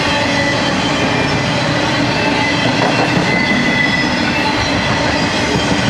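Intermodal freight train's trailer-laden flatcars rolling steadily past at speed: a continuous loud rumble of steel wheels on rail, with faint high wheel-squeal tones running through it.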